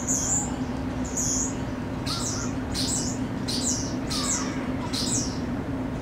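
European starling singing from a wire: about seven short, high whistled notes, the later ones sliding down in pitch, over a steady low hum.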